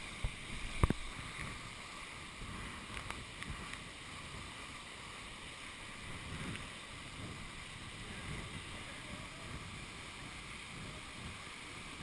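Steady rushing of a tall waterfall pouring into its plunge pool, with water sloshing close by. A couple of sharp knocks come in the first second.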